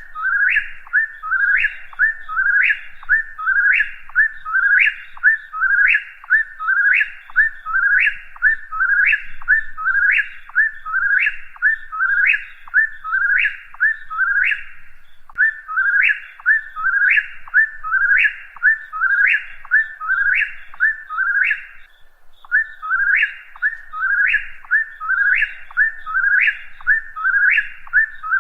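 Eastern whip-poor-will singing its 'whip-poor-will' call over and over, about one phrase a second, with two brief breaks partway through.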